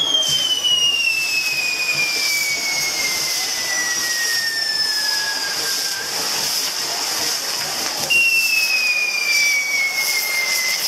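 Whistling fireworks: one long whistle falling steadily in pitch for about six seconds, then a second, shorter falling whistle starting near the end, over the steady hiss of burning fireworks.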